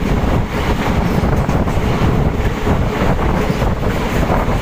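Heavy wind buffeting the microphone over the steady rumble of a passenger train running at speed, with the microphone held out in the slipstream beside the coach.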